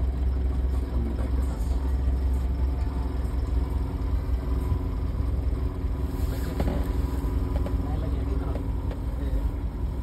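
Safari vehicle engine idling with a steady low rumble, with faint voices now and then.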